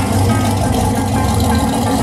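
Pro street Chevy II Nova's engine running at idle, low and uneven.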